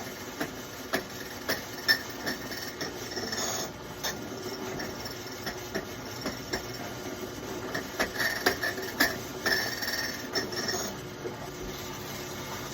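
Key cutting machine running, its cutter milling the cuts into a Dodge key blank, with frequent sharp clicks and scrapes as the blank is worked along under the cutter.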